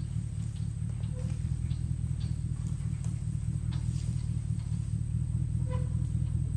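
A pickup truck's engine running at low speed as the truck backs up towing a small trailer, a steady low rumble. A couple of short bird chirps sound above it, one about a second in and one near the end.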